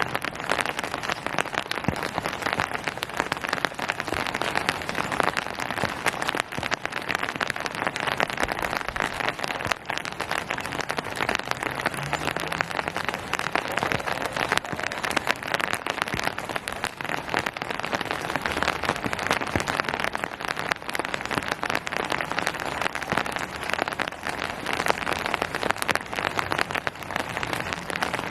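Steady rain falling and pattering on surfaces, a dense even hiss of many drop ticks with no breaks.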